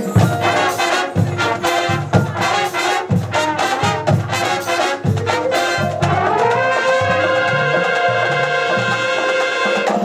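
Marching band brass and percussion playing a run of short, punched chords over drum hits, then about six seconds in the brass slides up in pitch together into a long held chord.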